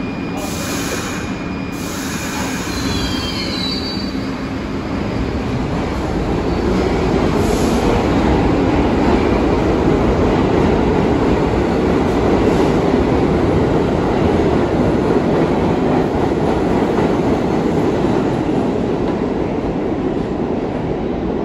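R62A subway train running through the station on the track: a steady rumble of wheels on rail that builds to its loudest about eight seconds in and then eases off. A brief wheel squeal comes about three seconds in.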